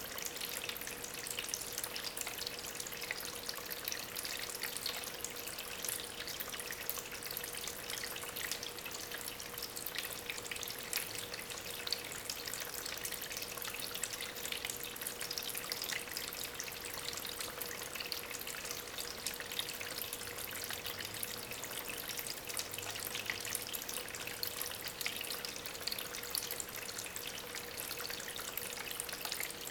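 Water trickling and splashing steadily over stones in a small homemade tabletop waterfall recirculated by a small aquarium pump, with a faint steady hum underneath.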